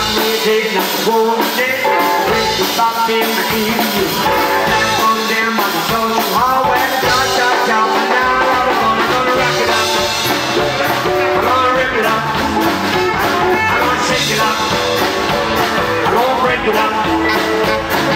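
Live rockabilly band playing an instrumental break: a saxophone leads with sliding, bending notes over upright bass, drums and guitar.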